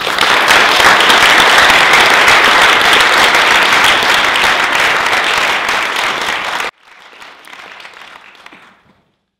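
Audience applauding loudly with many hands clapping. About two-thirds of the way through it drops abruptly to faint applause, which dies away near the end.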